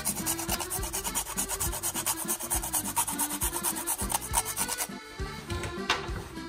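Whole nutmeg rasped against a small flat metal grater, in rapid, even strokes that stop about five seconds in. Accordion waltz music plays in the background.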